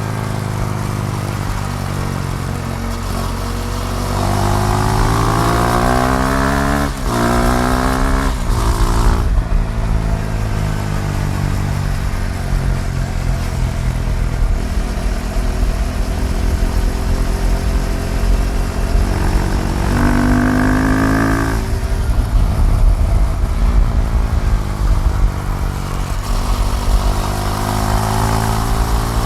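KTM Duke 390's single-cylinder engine on the move, rising in pitch under acceleration with two quick drops as it shifts up, then holding a steady pitch at cruise before climbing again near the end, over a constant low wind rumble. A brief separate higher tone sounds about two-thirds of the way through.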